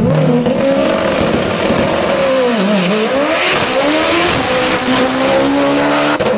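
Car engine revving hard at high rpm. Its pitch dips about two and a half seconds in, then climbs again over a loud rushing noise.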